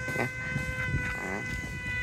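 Electric motor and propeller of a small battery-powered RC model jet in flight, giving a steady high whine of several even tones.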